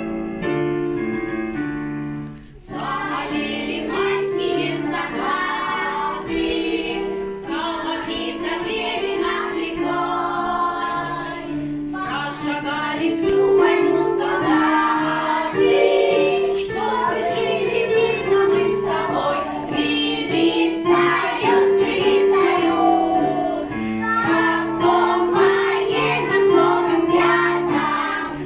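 A group of young children singing a song together over instrumental accompaniment, entering after a short keyboard introduction about two and a half seconds in.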